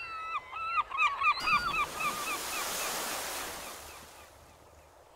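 Gulls calling, a quick run of repeated cries, over a rush of sea surf that swells up about a second and a half in and fades away by about four seconds.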